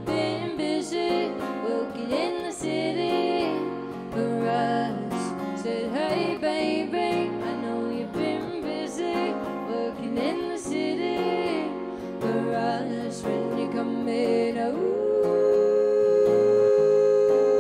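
Live solo acoustic performance: a woman singing over a strummed acoustic guitar, with a long held note near the end.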